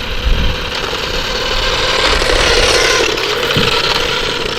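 Toy remote-control car driving: a small electric motor whining, with the wheels and body rattling over the ground. It grows louder in the middle and eases off near the end.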